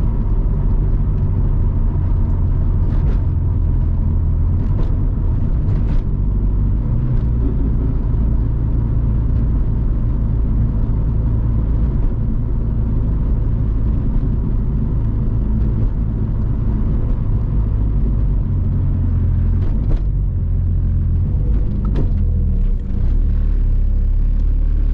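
Car engine and drivetrain heard from inside the cabin, a steady low drone whose pitch steps up and down as the 7-speed dual-clutch gearbox changes gear. A few sharp clicks come through over it.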